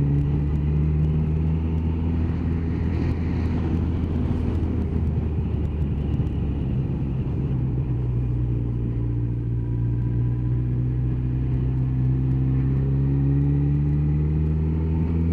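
Motorcycle engine running while riding, with rushing wind noise. The engine note climbs steadily over the last few seconds as the bike accelerates.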